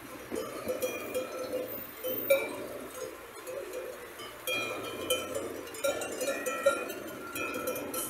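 Several bells worn by a grazing flock of sheep clinking and clanking irregularly, many short overlapping rings.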